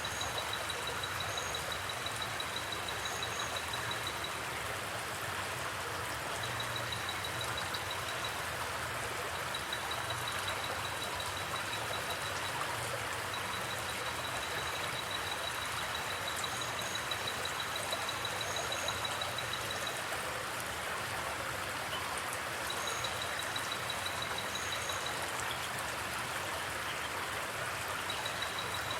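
Forest creek water flowing and splashing steadily. A high, rapid pulsed trill comes and goes in runs of a few seconds, with a few short paired chirps above it.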